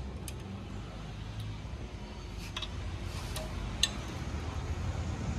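Steady low hum with a few faint, light clicks and taps scattered through it.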